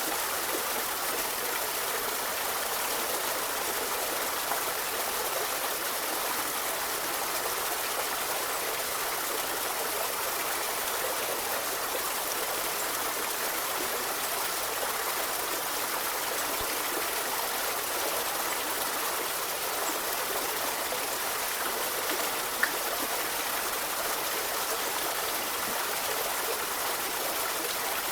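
River water flowing steadily over stones, a continuous rushing and gurgling with no change in level. A single faint click about three quarters of the way through.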